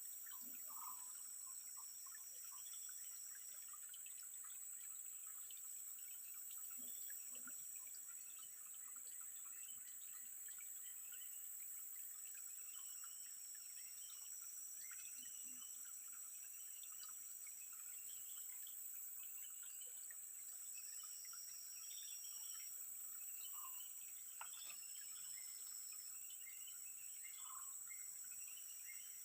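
Outdoor ambience of many small birds chirping and calling over a steady high-pitched insect drone, with a second, lower insect buzz that starts and stops several times.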